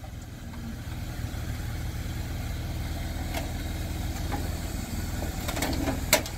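A BMW 323ci's straight-six engine idling as the car creeps forward off a flatbed trailer, with a few sharp knocks near the end as it comes down the ramps.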